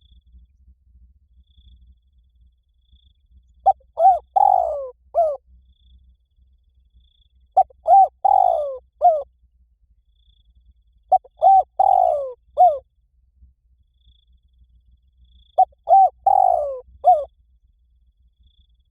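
Spotted dove cooing: four call phrases about four seconds apart, each a quick run of coos with a longer falling note in the middle.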